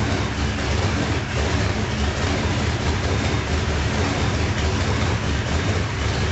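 Radial aircraft engine running at a steady speed on a test stand: a loud, even rumble of rapid firing pulses that holds constant throughout.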